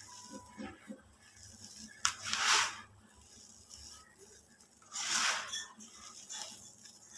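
Dry cement and white concrete powder being crumbled in the hands and poured back into a plastic bucket: soft hissing rustles of dust, with two louder pours about three seconds apart, the first starting with a sharp click.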